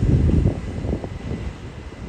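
Class 221 Super Voyager diesel-electric train pulling away: a low rumble, loudest in the first half second, then fading, with a faint steady high whine over it.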